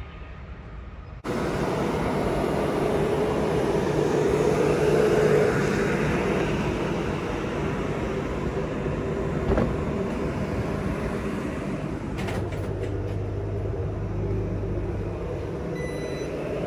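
Regional passenger multiple unit standing at the platform with its engine and auxiliary equipment running steadily, a loud constant hum and rumble that starts abruptly about a second in. A short electronic beep sounds near the end.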